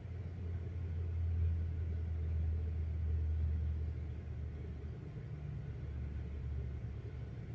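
A low rumble that swells over the first few seconds and then eases off.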